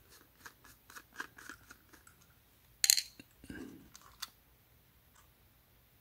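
Screwdriver loosening a wire terminal screw on the back of a Ring Video Doorbell 2: a run of small metal clicks and scrapes over the first two seconds, then a louder sharp click about three seconds in and a few handling noises.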